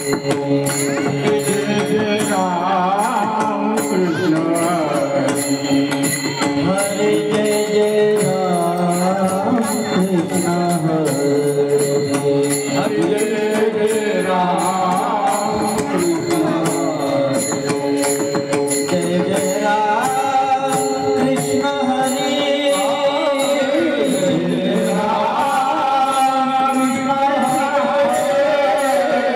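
Marathi kirtan singing: a panchapadi sung by the male kirtankar in a bending, ornamented line. It runs over steady sustained accompaniment and a regular high ticking beat.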